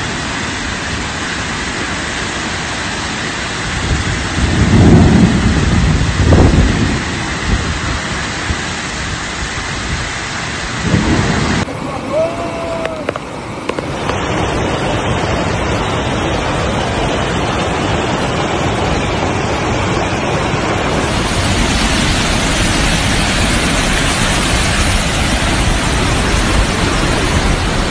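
Heavy storm noise: steady rain and wind on the microphone with loud low rumbles about four to seven seconds in. After a cut, the steady rushing roar of a muddy flash-flood torrent.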